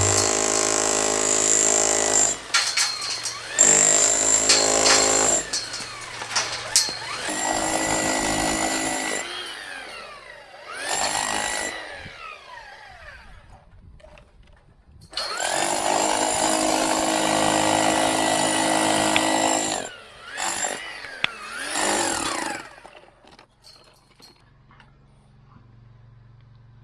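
Hand-held electric power tool run in several bursts, its motor whining up to speed, holding steady, then winding down each time it is released; one long run in the middle and two short blips near the end.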